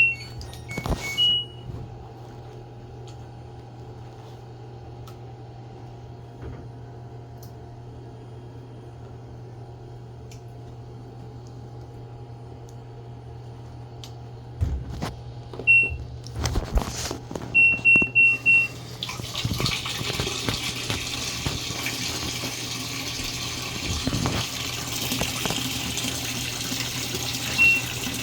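Washing machine control-panel beeps as buttons are pressed, a few clicks and knocks, then water rushing into the drum as the fill starts about two-thirds of the way in, over a steady low hum.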